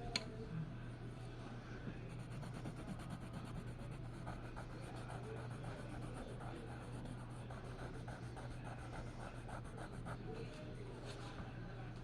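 Faint, irregular scratching and small ticks of something rubbed or drawn across a surface, over a steady low hum, with one sharp click just after the start.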